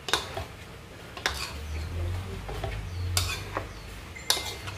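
Wooden spatula stirring and tossing vegetables in a large aluminium wok, knocking and scraping against the metal four times, over a low steady hum.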